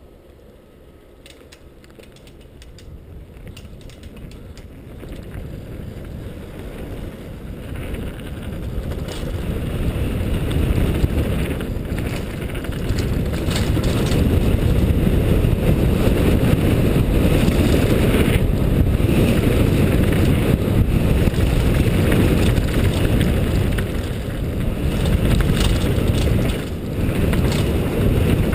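Wind buffeting a helmet-mounted GoPro on a downhill mountain bike run, growing louder over the first dozen seconds as speed builds and then staying loud. Under it, knobby tyres run over dirt and rocks and a Cove Shocker downhill bike clicks and rattles.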